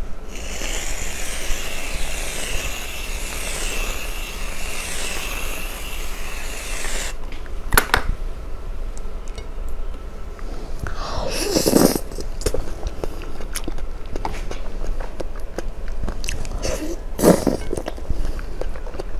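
Whipped cream sprayed from an aerosol can in a steady hiss for about seven seconds. Then come close-up sticky, clicking eating sounds as a cream-covered green jelly candy strip is lifted and bitten, with two louder sudden sounds later on.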